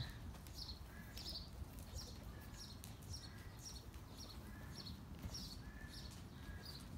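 Half-Hanoverian, half-Arabian mare walking under a rider on sand arena footing, faint, with a light high-pitched sound repeating about twice a second.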